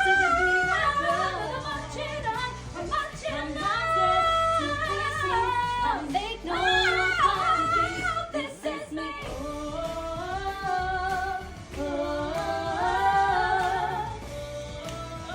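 Female vocal group singing a pop ballad over a backing track, with held notes and gliding pitches.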